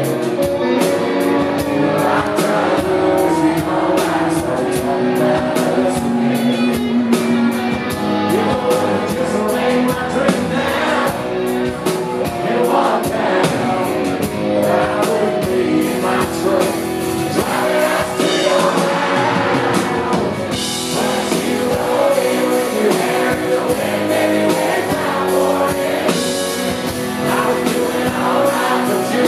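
A male country singer singing a song live into a microphone while strumming an acoustic guitar in steady, regular strokes, amplified through a club PA.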